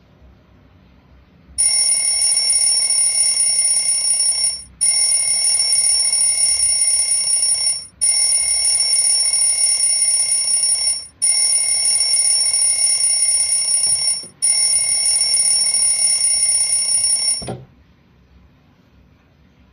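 Alarm-clock-style bell ringing in five bursts of about three seconds each, with brief breaks between them. It starts a second and a half in and stops a couple of seconds before the end.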